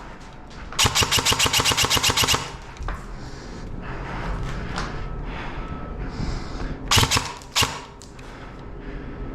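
Airsoft gun firing a rapid automatic burst of about ten shots a second for roughly a second and a half, then, near the end, a few more shots close together.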